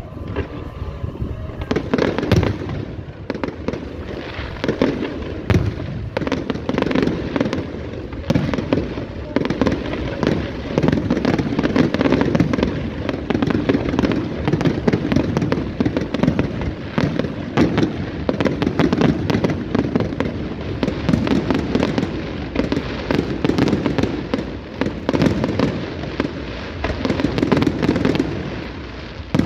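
Fireworks display: many shells bursting in a near-continuous barrage of overlapping bangs and crackles, heaviest from about eight seconds in.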